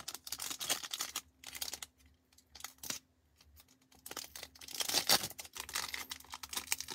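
Foil trading card packs crinkling and rustling as they are handled, in irregular bursts, with a lull in the middle before denser crinkling near the end.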